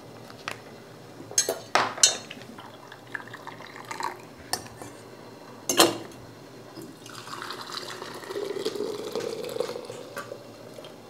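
Glass and metal clinks and knocks, the loudest about six seconds in, as a stainless steel funnel is set on a glass canning jar. From about seven seconds in, hot elderberry juice is poured from a glass pitcher through the funnel into the jar, a steady liquid pouring and filling sound lasting a few seconds.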